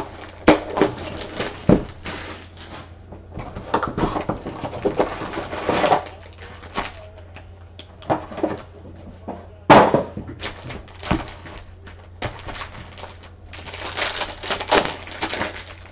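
Foil-wrapped Panini Prizm football card packs crinkling and rustling as they are handled and pulled from the cardboard hobby box, with scattered clicks and a sharp knock about ten seconds in.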